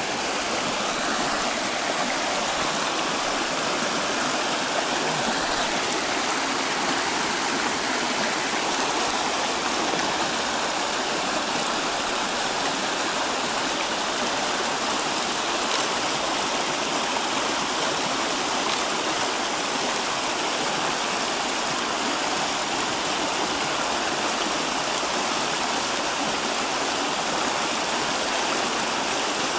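Shallow rocky river rushing over stones in a small rapid: a steady, even rush of water.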